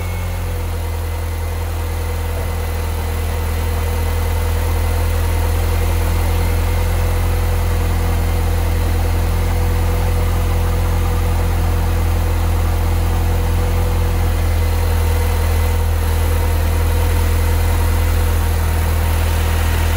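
2005 R53 Mini Cooper S supercharged 1.6-litre four-cylinder idling steadily, the revs having just settled after starting. It runs smoothly with no exhaust blowing, on its newly fitted supercharger bypass valve and catalytic converter.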